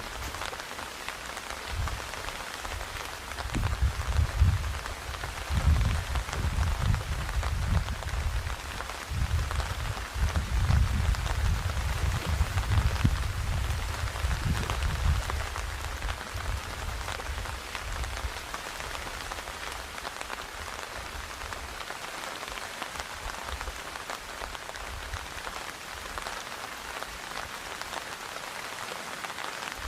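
Rain falling on a tent's fabric, heard from inside the tent: a steady patter of many fine drops. A low rumble swells and fades in gusts from about 3 to 16 seconds in.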